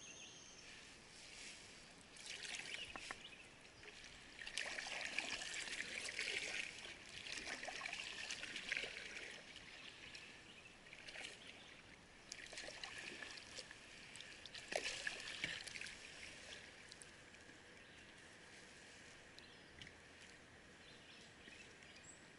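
Kayak paddle strokes: water splashing and dripping off the blade in clusters of a few seconds, with quieter gaps between, in the second half mostly dying away.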